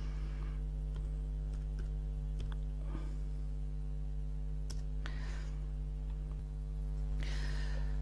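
A few scattered computer keyboard taps and mouse clicks as a short search term is typed, over a steady electrical hum.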